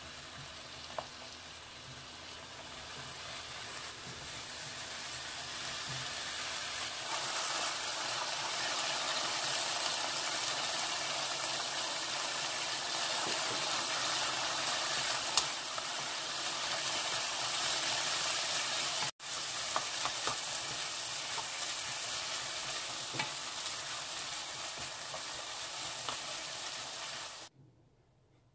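King oyster mushrooms sizzling as they stir-fry in a nonstick wok, with a wooden spatula scraping and tapping against the pan. The sizzle grows louder over the first several seconds, breaks off for an instant just past the middle, and cuts off suddenly near the end.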